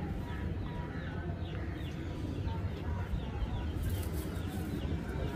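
Pigeons calling in a loft: low cooing under short, high, falling chirps repeating a few times a second.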